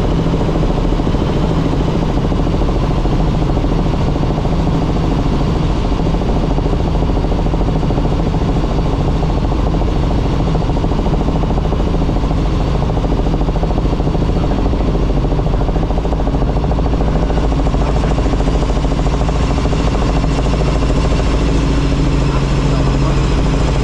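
Helicopter engine and rotor running with a loud, steady drone.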